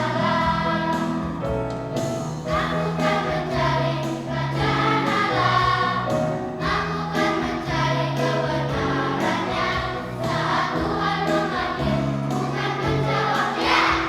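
A church choir singing a sacred anthem in several voice parts, with held chords.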